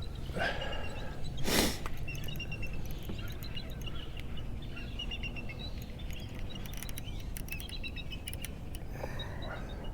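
Small birds chirping repeatedly in short high notes over a steady low outdoor rumble, with a brief loud rush of noise about one and a half seconds in and scattered faint clicks.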